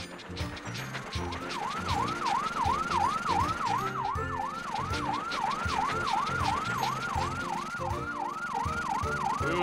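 Cartoon fire truck's siren in a fast yelp: a rising-and-falling tone that repeats about three times a second and starts about a second in.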